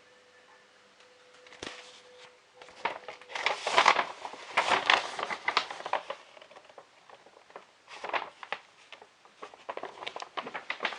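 Plastic packaging crinkling and rustling as it is handled, in irregular bursts, loudest about four to five seconds in and again near the end.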